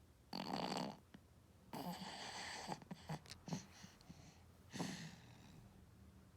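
Loud snoring in sleep: three noisy snores, about a second in, two seconds in and near five seconds, with small clicks and snuffles between them.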